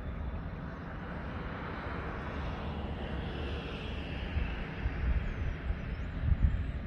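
Wind buffeting the microphone outdoors: a steady low rumble with gusts that grow stronger in the second half, and a broad swell of noise in the middle. A few faint bird chirps come in near the end.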